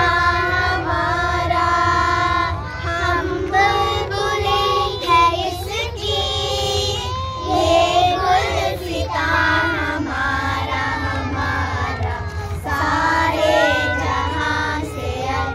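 A group of young children singing a song together in unison, holding long sung notes.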